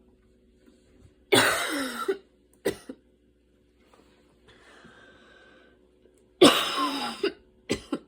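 A woman's asthma cough: two harsh coughing bouts about five seconds apart, each a drawn-out cough followed by a short second one.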